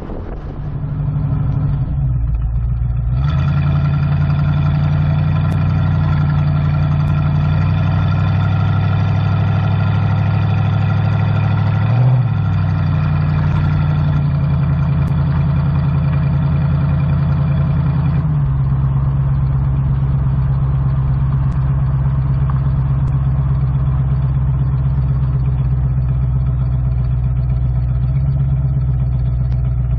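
Ford 302 V8 of a 1973 Mustang running steadily through a turbo-muffler exhaust. It is heard from inside the cabin on the move for the first few seconds, then from outside the car, with the tone shifting about three seconds in and again around eighteen seconds.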